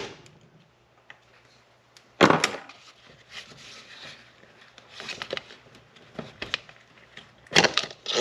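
Clicks and knocks of hard plastic line-trimmer head parts and tools being handled on a workbench. The loudest knocks come as a pair about two seconds in and as a quick cluster near the end, with lighter clicks between.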